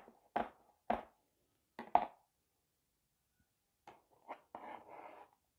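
Knife chopping red pepper on a plastic cutting board: four sharp knocks in the first two seconds, then a short rustle near the end as the chopped pepper goes into a bowl of shredded lettuce.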